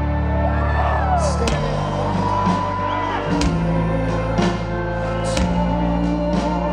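Rock band playing live: sustained low chords under a melody that glides and bends in pitch, with cymbal crashes about once a second.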